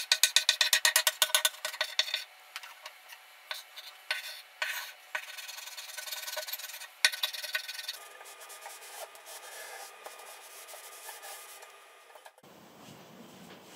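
Chalk scratching on a chalkboard: a quick run of short strokes, about eight a second, then slower scattered strokes, fading to a faint rubbing after about eight seconds.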